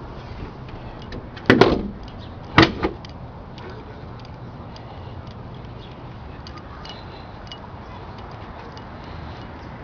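A 2000 Camaro Z28's LS1 V8 idling steadily through a catless exhaust with stock manifolds and Y-pipe into a dumped SLP Loudmouth II muffler. Two loud slams, about a second apart, come a little over a second in.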